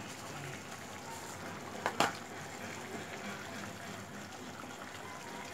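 Raw mango chutney simmering and bubbling in a pan while sugar is poured in and stirred with a wooden spatula. One sharp knock about two seconds in.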